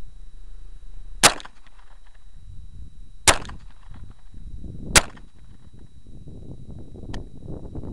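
Three Glock pistol shots, spaced about two seconds apart, each with a short echo, followed by a faint click near the end.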